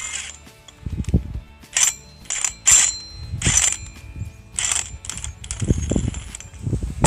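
Cordless impact wrench run in short bursts, driving nuts onto the steel leveling feet of a Woodland Mills HM130MAX sawmill, with the steel plates clinking and ringing; one longer run about 6 s in.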